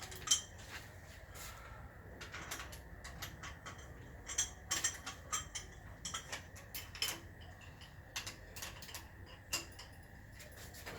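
Irregular light metallic clicks and ticks of hand tools as bolts are undone on a Nissan RB25DET engine being dismantled.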